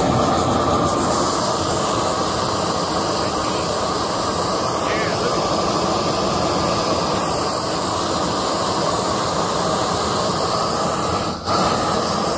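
Propane torch burning at full flame against cement backer board: a steady, even rushing noise of the burner. It dips for a moment near the end.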